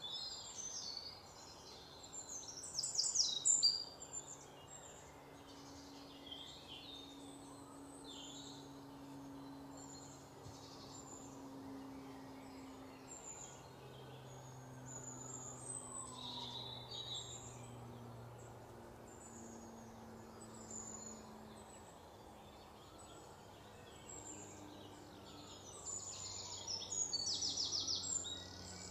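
Small songbirds chirping and twittering, with a loud rapid trill about three seconds in and again near the end, over a faint low hum.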